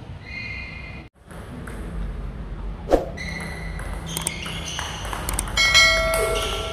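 Table tennis rally: the ball clicking off the bats, one a Fan Zhendong ALC blade with DHS Hurricane 3 Neo rubbers, and bouncing on the table, echoing in a large hall. A few short high-pitched ringing tones sound in between, the loudest near the end.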